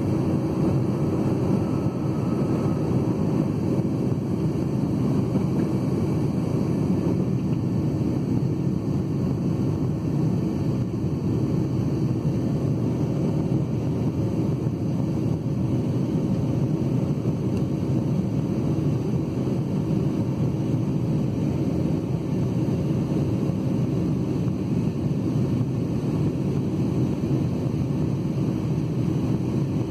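Inside the cabin of a Boeing 757-200 climbing after takeoff: a steady engine and airflow drone, heavy and low, with a faint steady hum on top.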